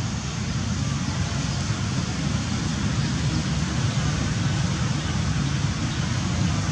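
Steady rumble of road traffic, mostly low in pitch, with an even hiss above it.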